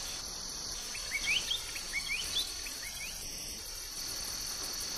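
Night insect chorus, a steady high cricket trill, with a run of short rising chirps between about one and three seconds in.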